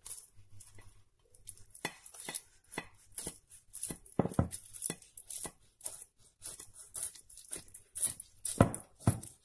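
A knife cutting through a toasted quesadilla: a run of irregular short crackling cuts and taps, some louder strokes near the middle and near the end.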